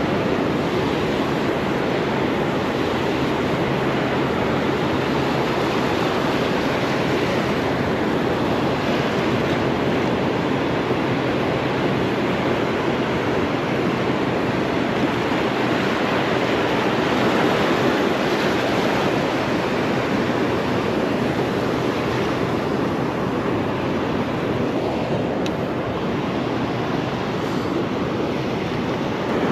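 Steady wash of ocean surf breaking on a beach, an even rushing noise with no distinct breaks.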